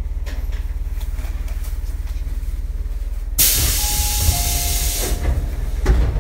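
Sudden loud hiss of compressed air venting from a standing Tobu 8000-series electric train. It lasts about two and a half seconds, with a faint whistle inside it. A steady low hum runs underneath.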